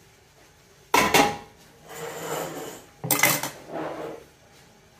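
Metal kitchenware clanking: a metal ladle and pots knocked and set down, with two sharp clanks about one second and three seconds in and quieter clattering between and after them.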